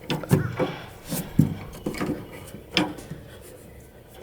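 Metal tailgate latch rods and parts knocking and clicking as they are handled and fitted into the latch mechanism: half a dozen sharp knocks, the loudest about a second and a half in and near three seconds.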